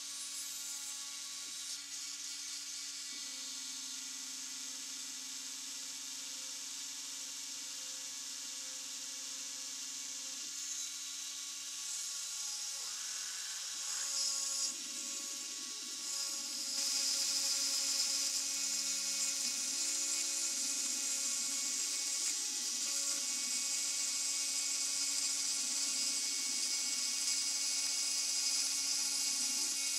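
Rotary-tool spindle on a homemade CNC router running at high speed with a steady high whine and hiss as the bit cuts into wood, while the salvaged copier stepper motors hum in tones that change pitch every few seconds as the axes move. The cutting noise gets louder a little past halfway.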